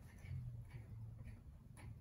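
Faint ticks and light scrapes as a ceiling fan light kit's glass shade and its side thumbscrews are loosened by hand.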